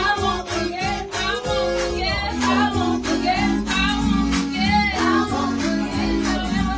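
Two women singing a gospel song into microphones, over instrumental backing with a steady beat.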